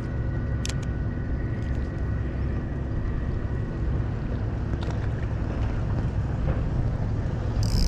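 A motor running steadily with a low drone, over wind on the microphone.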